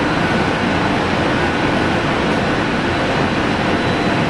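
JR Kyushu 815-series electric train running at speed between stations: a steady rumble of wheels on rail with a faint steady whine.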